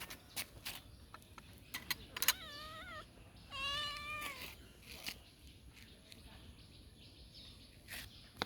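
Kitten meowing twice, two high-pitched calls, the second longer and louder, with a few light clicks and taps around them.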